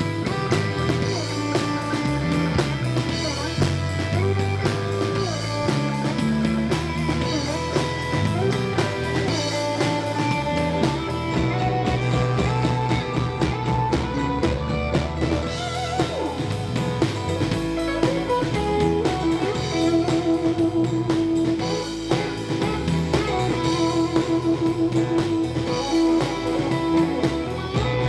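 Live country-rock band playing an instrumental break: a guitar lead over a drum kit and bass, with no singing.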